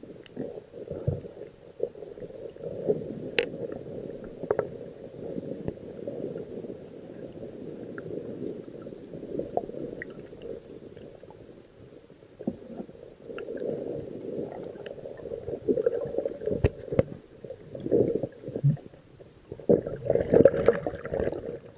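Muffled underwater water noise heard through a submerged camera, a low rumbling gurgle with scattered small clicks and knocks. It grows louder and brighter near the end as the camera comes up close under the surface.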